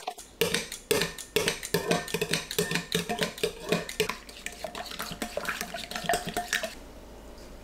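Eggs being beaten in a glass bowl with a thin metal utensil: quick, uneven clinks of metal against glass that stop about a second before the end.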